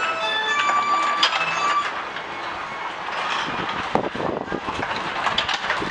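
Music fades out over the first two seconds, leaving the 1927 Parker carousel's turning mechanism running with a steady clatter and irregular clicks, like a train on rails.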